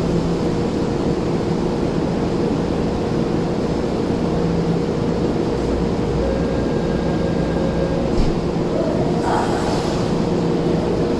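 Tokyo Metro Hibiya Line train standing at the platform with its doors shut, giving off a steady hum. A short hiss comes about nine seconds in.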